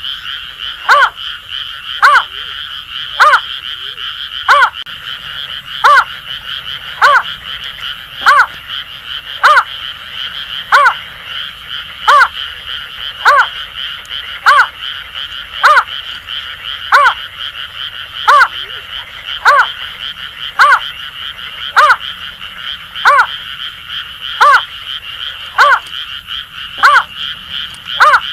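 Greater painted-snipe calling: a regular series of short, downward-slurred notes about once a second, over a steady high-pitched chorus of Asian grass frogs.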